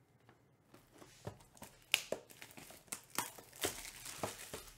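Plastic shrink wrap being torn and crinkled off a cardboard trading-card hobby box: irregular sharp crackles and snaps starting about a second in.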